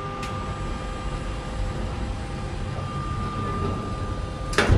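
Electrically powered sliding toilet door on a regional train moving shut: a steady motor whine over the train's low running noise, ending in a sharp knock as the door closes near the end.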